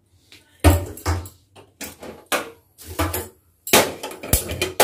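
Gas stove burner being lit: an irregular string of sharp clicks and knocks, about two a second, as the knob is turned and a hand-held spark lighter is worked at the burner.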